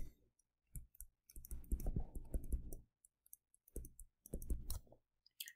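Faint, irregular clicks and taps of a stylus writing on a tablet, with soft low scuffs in two stretches as the strokes are drawn.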